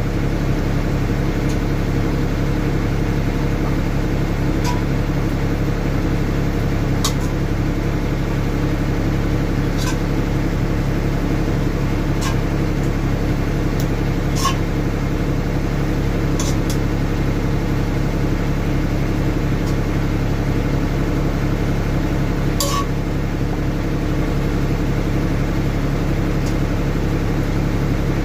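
Steady, loud mechanical hum of a running fan or motor, with a handful of light clicks and taps of kitchen utensils scattered through it.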